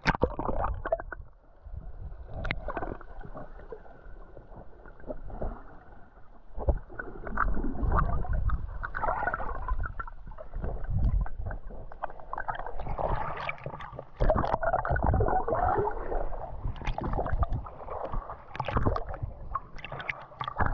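Water sloshing and splashing in uneven surges every second or two, with a deep rumble under it.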